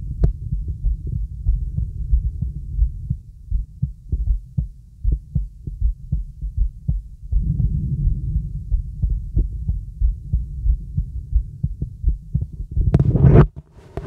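Right side of the chest heard through a stethoscope: slow breath sounds as a low whooshing, with the heartbeat thudding underneath. About 13 seconds in there is one loud brief rustle.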